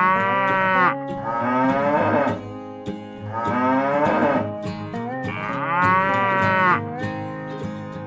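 Cow mooing: four drawn-out calls of about a second each, each dropping in pitch at its end.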